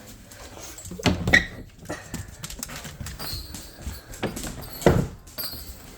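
Pet dog and cats moving about: paws and claws tapping and scuffling on the floor, with loud knocks about a second in and again about five seconds in.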